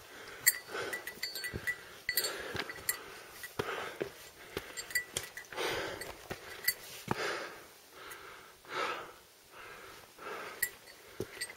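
A hiker breathing hard and fast while climbing a steep rocky slope, a heavy breath about every second. Short knocks and scuffs from boots and hands on the rock fall between the breaths.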